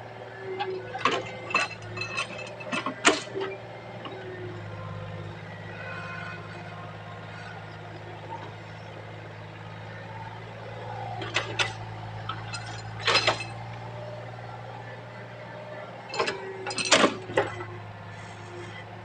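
Excavator's diesel engine running steadily, with three bursts of sharp metallic clanks and knocks from the working machine.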